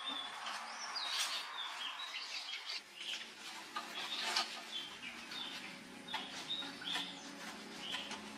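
Small birds chirping and twittering repeatedly, with scattered light clicks and taps. A faint low hum comes in about three seconds in.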